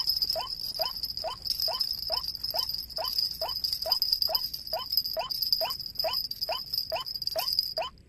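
White-breasted waterhen calling: a monotonous series of short rising notes, about two a second, the bird's lure call. A steady high whine runs underneath and stops just before the calls go on alone near the end.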